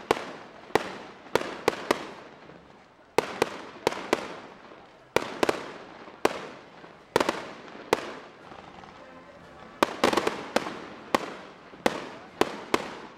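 Aerial firework shells bursting in a display: sharp bangs about once a second, each trailing off in an echo, coming thicker about ten seconds in.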